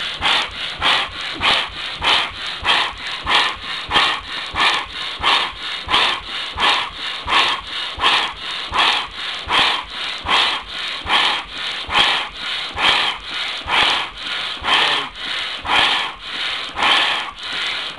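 Large low-temperature-differential Stirling engine running unloaded with its generator disconnected, giving a steady, even whoosh about three times a second.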